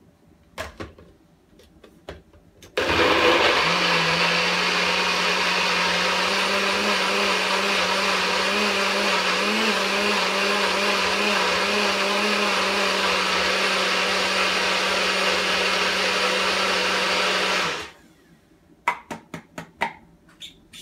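NutriBullet blender running steadily for about fifteen seconds while blending fruit and juice in its cup, then stopping abruptly. A few clicks and knocks come before it starts and after it stops, as the cup is set on and lifted off the base.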